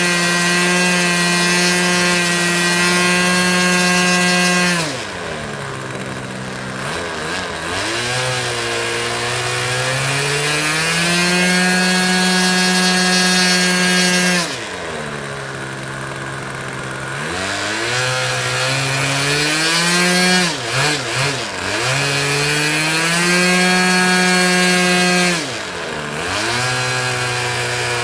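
Small, high-revving engine of a fixed-wing plane running hard, throttled back sharply four times and revved back up, with a brief stuttering dip about three quarters of the way through.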